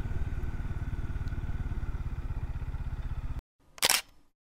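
Motorcycle engine running at low revs with an even low pulse, cutting off abruptly about three and a half seconds in; a single short, sharp sound follows half a second later.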